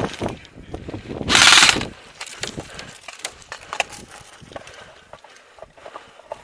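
Airsoft gunfire: a loud burst lasting about half a second, about a second and a half in, followed by scattered sharp clicks and snaps.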